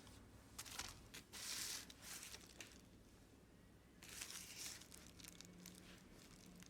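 Near-quiet room with a few faint rustling, crinkling noises of handling.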